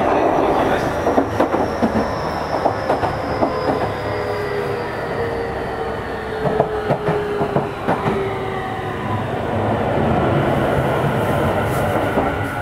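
Tokyu 5050 series electric train running, its wheels clicking over rail joints, while the motor whine falls steadily in pitch as the train slows.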